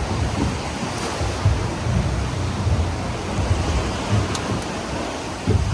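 Sea water washing against the rocks and the boat, with wind buffeting the microphone in uneven low rumbles.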